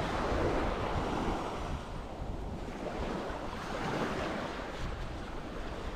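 Sea waves washing onto the beach, swelling and easing, with wind rumbling on the microphone.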